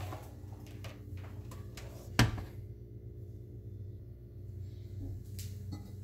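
Handling knocks and clicks as objects are moved and set down at a stainless steel kitchen sink, with one sharp knock a little over two seconds in. A low steady hum runs underneath.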